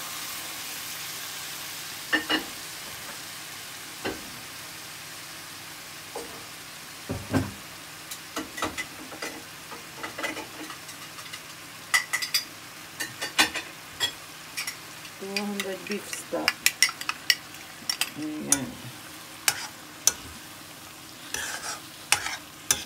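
Onion and bacon gravy sizzling in a hot frying pan just after beef stock is poured in, the sizzle loudest at first and slowly dying down. A spoon stirs it, scraping and knocking against the pan many times, more often in the second half.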